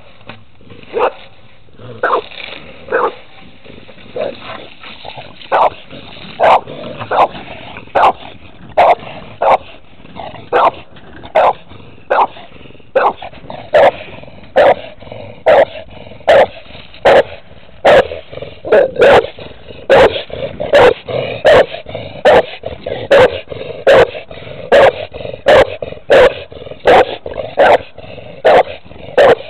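Tan pit bull-type dog barking repeatedly at an opossum, short barks about once a second at first, coming faster and louder from about halfway on.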